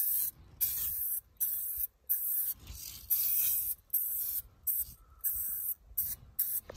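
Aerosol spray can of 2K clear coat hissing in short bursts, about two a second, as a few light coats are misted onto a painted brake caliper.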